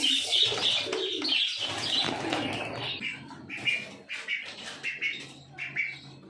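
Pigeons cooing low, with small birds chirping over them in short repeated calls.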